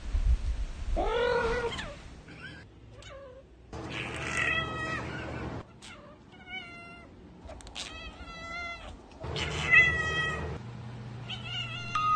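Cats meowing: a string of about six separate meows with short gaps between them, some wavering up and down in pitch.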